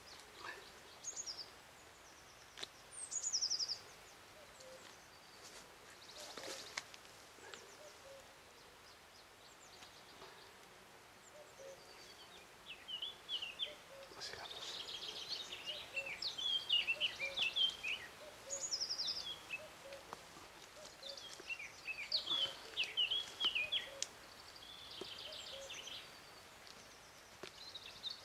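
Songbirds singing in woodland: repeated high chirps and quick trills, busiest in the second half, with a falling high trill about three seconds in. A short rustle about six seconds in.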